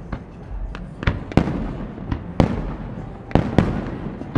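Aerial firework shells bursting: a string of sharp bangs, several coming in close pairs, with a low rumble carrying on between them.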